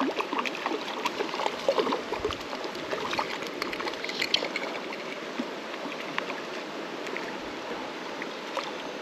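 Creek water running steadily, with small splashes from a hooked trout fighting at the surface, most frequent in the first few seconds.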